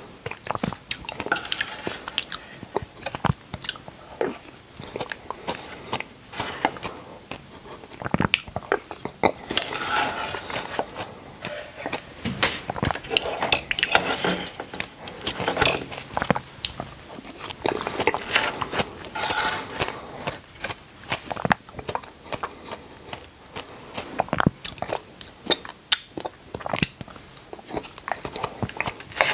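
Close-miked chewing of red dragon fruit chunks in a creamy sauce: wet biting and mouth sounds with many small sharp clicks, going on steadily.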